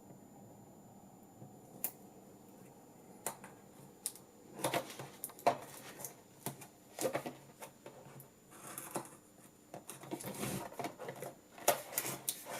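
Packaging being handled: a cardboard box and a plastic carry case are moved and opened, giving irregular clicks, knocks and rustles. These start about four seconds in, after a quiet start.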